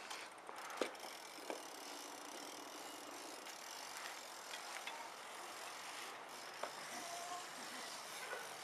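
BMX bikes rolling on a hard outdoor court: a faint, steady hiss with a few light clicks.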